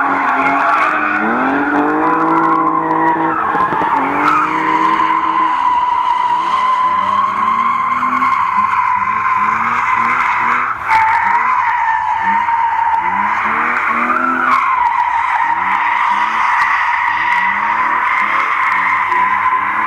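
BMW E46 330i's M54B30 straight-six revving up and down as the car drifts, its rear tyres squealing without a break, with a short dip about eleven seconds in.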